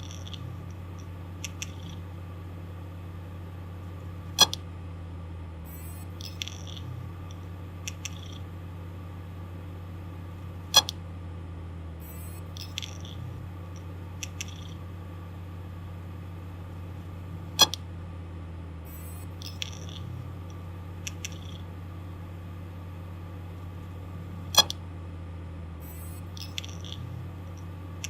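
Damaged hard disk drive running with a steady low hum, giving a loud sharp click four times, about every six to seven seconds, with fainter ticks and short scratchy noises between: the clicking of a failing drive.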